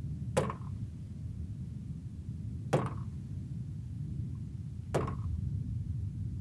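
Three sharp impacts, evenly spaced about two seconds apart, each with a brief ring, over a steady low rumble.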